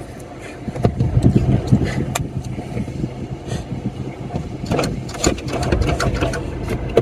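Diesel car engine running at idle, heard from inside the cabin as a steady low hum, with scattered knocks and clatter over it, busiest about a second in and again near five seconds.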